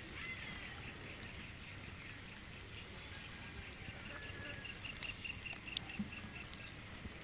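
An animal calling in a rapid, even series of short high chirps, about five a second, stopping shortly before the end.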